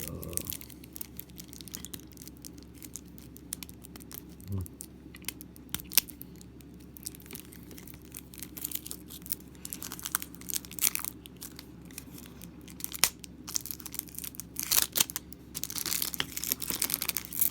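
Plastic packaging being torn open and crinkled by hand, with scattered clicks and rustles that grow busier near the end.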